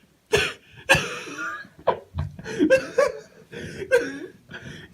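A person laughing and chuckling in short, broken bursts.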